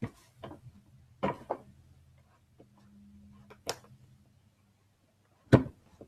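Cardboard packaging being handled and worked open: a few separate sharp clicks and taps, the loudest about five and a half seconds in, as the box's flaps and tabs are pulled free.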